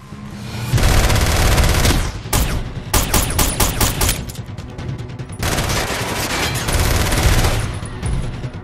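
Gunfire: two long stretches of dense, rapid automatic fire, with a quick run of separate handgun shots between them.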